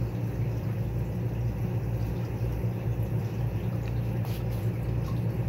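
A steady low electrical hum.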